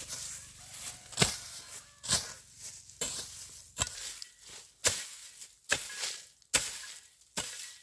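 A hand tool chopping repeatedly, about eight sharp strikes at roughly one a second.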